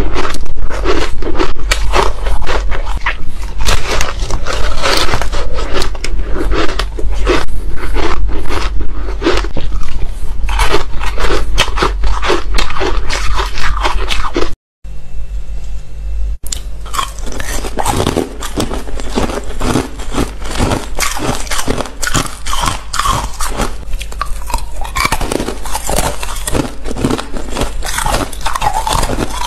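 Close-miked crunching and chewing of frozen ice: dense, irregular crackling bites. About halfway through it cuts out for a moment, then the crunching picks up again a little quieter.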